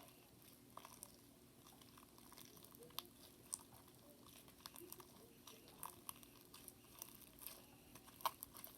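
Faint, sticky clicks and squishes of a small lump of freshly formed slime being worked between the fingers, scattered irregularly over a quiet room hum.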